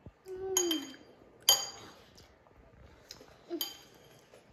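A small table knife clinking against a dish three times, sharp ringing taps, the middle one the loudest. A short child's vocal sound sits with the first clink.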